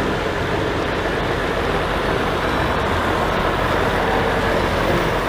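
Steady rushing spray of water washing mud off a toy container truck.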